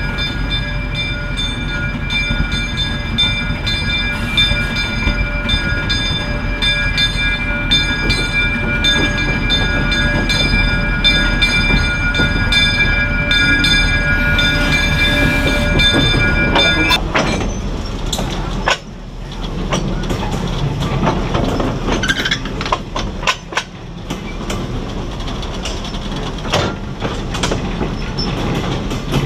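Small Plymouth gasoline locomotive with a cabin car rolling along jointed track, its engine a low rumble under clicking wheels. A steady high whine of several tones stops abruptly about halfway through. After that, the wheels click and knock over the rail joints close by.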